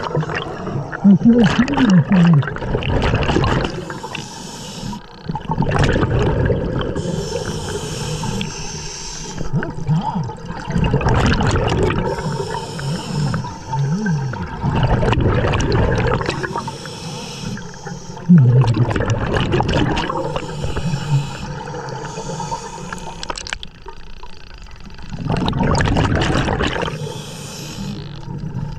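Scuba diver breathing through a regulator underwater: hissing inhalations a second or two long alternate with rushing, gurgling bursts of exhaled bubbles, in a slow repeating cycle.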